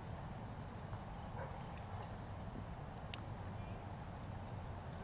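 Steady low rumble of outdoor background noise, with a few faint scattered sounds and a single sharp click about three seconds in.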